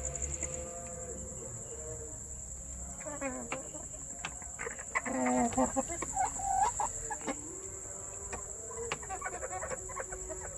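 Chickens clucking and calling, with the loudest run of calls in the middle and quicker clucks near the end.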